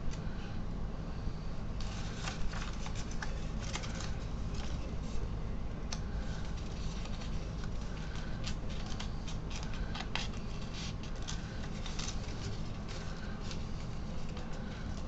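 A sheet of paper being folded and creased by hand into a paper airplane: irregular crinkles and rustles from about two seconds in, over a steady low hum.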